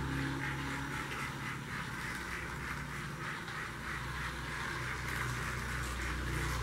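Toy train running: a small motor humming steadily under a rhythmic chugging of about three pulses a second.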